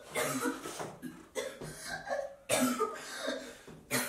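A young woman coughing and retching in about four harsh fits, roughly a second apart.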